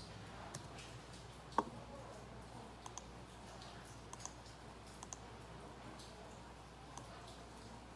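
Scattered clicks of a computer being worked during video editing: single clicks and quick double clicks, with one louder click about a second and a half in.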